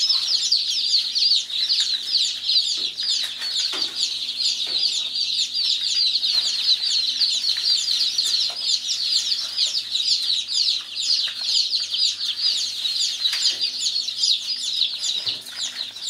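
A crowd of newly hatched chicks peeping continuously, many short, high chirps that slide downward and overlap one another.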